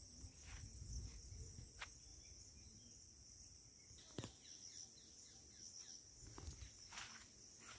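Near silence with a faint, steady high chirring of insects and a few soft, irregular footfalls and rustles on a grassy path.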